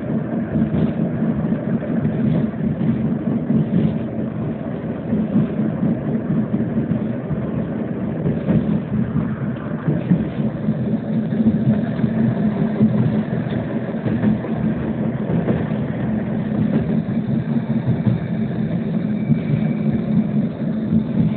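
Running noise heard inside a moving MiNiN tram: a steady rumble from the wheels on the rails and the running gear. A faint thin whine joins near the end.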